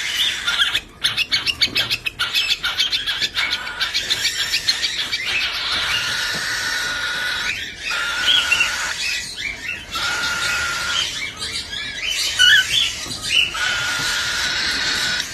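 Birds calling in a busy mix of high-pitched squawks, squeals and chirps, with a quick run of short chirps in the first few seconds.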